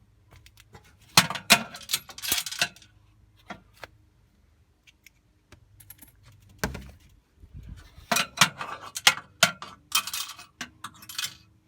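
Coins clinking and jingling as they are gathered out of the bottom of a vending machine, in two bursts with a few single clicks between.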